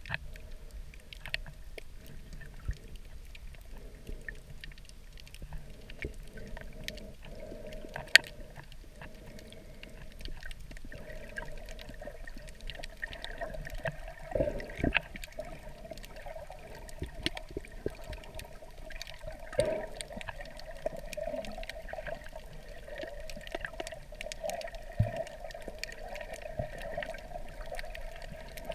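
Water heard from underwater in a shallow reef tide pool: sloshing and gurgling with scattered sharp clicks, and one sharp knock about eight seconds in. The sloshing grows fuller in the second half.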